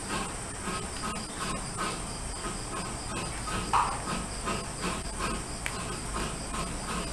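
Crickets chirping in a steady, rhythmic trill, with one brief sound about four seconds in.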